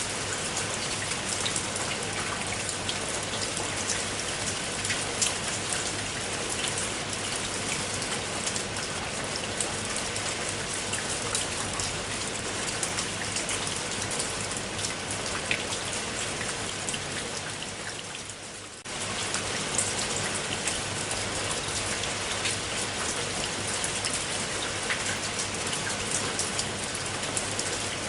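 Steady rain falling on a surface, a dense hiss with many individual drops ticking. About eighteen seconds in it fades briefly, then comes back suddenly at full level.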